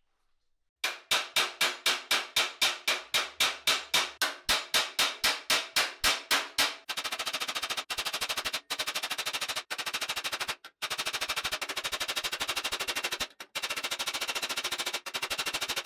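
Hammer blows on a sheet-steel visor plate, a steady run of ringing strikes about four a second. About seven seconds in they give way to a much faster, nearly continuous rattle of blows, broken by a few short pauses.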